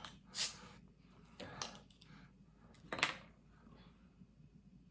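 A hot-pepper soda being handled and opened: three short sharp hissing clicks spread over about three seconds.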